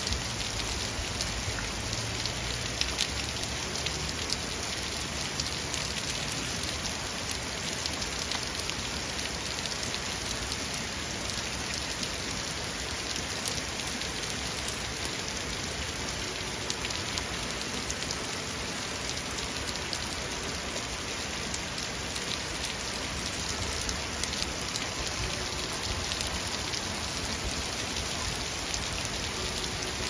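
Steady heavy rain falling on a street, lawn and parked cars, an even hiss flecked with the ticks of drops hitting close by.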